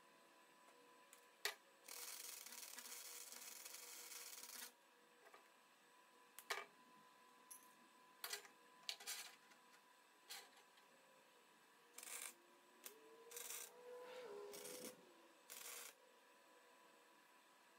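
Wire-feed welder arc crackling and hissing in bursts: one bead of about three seconds early on, then a run of short tack welds, with scattered clicks between them.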